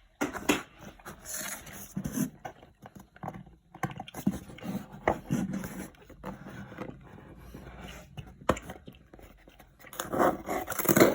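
A taped cardboard box being opened by hand: irregular scraping and scratching as fingernails pick at the sellotape, with rustling and small knocks of the cardboard.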